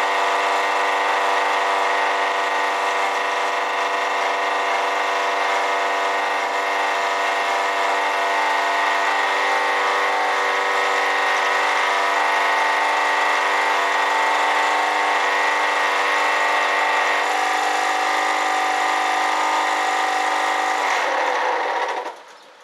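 Honda EB1500X generator running steadily, with a noise from the alternator that the owner puts down to a bad alternator bearing. Near the end the engine note drops and it stops.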